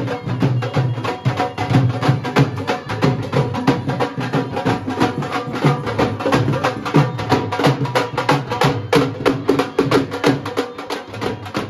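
Several dhol drums beaten with sticks by a walking band, a fast, steady beat of many strokes a second.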